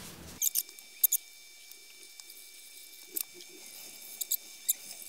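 Faint, sparse scratching with a handful of small sharp clicks: hand work scraping old glue off an LCD panel after it has been wetted with acetone.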